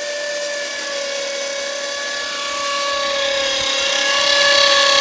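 Handheld electric drill running steadily under load, its bit pressed into a thick, hard steel flat bar; a steady whine that grows a little louder toward the end. The steel is so hard that the bit is barely cutting through.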